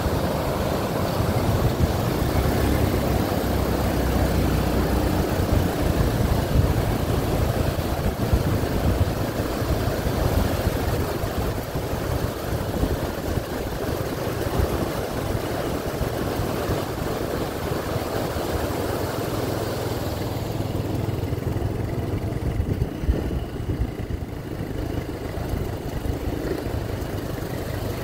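Steady rushing of a swollen, muddy river in flood, with wind rumbling on the microphone; the hiss of the water fades somewhat about three-quarters of the way through.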